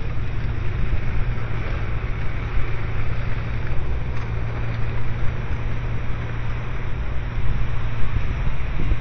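Steady low engine rumble with an even hiss of outdoor noise, no separate events standing out.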